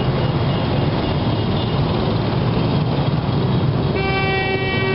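Dense street traffic, with motorcycle and car engines running as they pass in a steady stream. Near the end a vehicle horn sounds one steady note for about a second.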